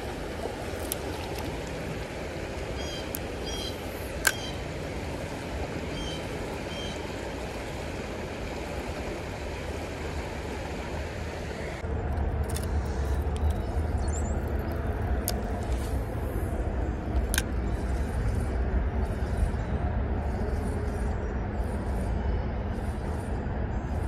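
Shallow creek riffle rushing steadily, with a few short bird chirps a few seconds in. About twelve seconds in the sound cuts to a louder low rumble with scattered clicks.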